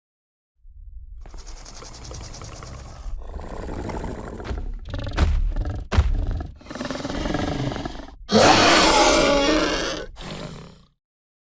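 Monolophosaurus roar sound effect, built mostly from pig calls: low growls that build, a few sharp snaps around the middle, then a loud roar about eight seconds in that fades away.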